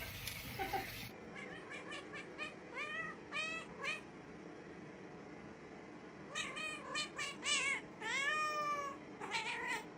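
A cat meowing over and over: a quick run of short meows, then after a pause a few more, including one longer meow near the end.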